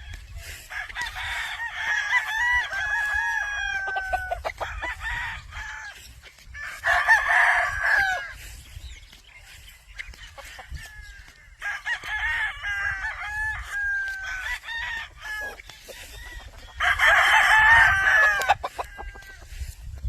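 Several McRae gamefowl roosters crowing in turn, in four bouts, with crows overlapping at times; the second and last crows are the loudest. A steady low rumble runs underneath.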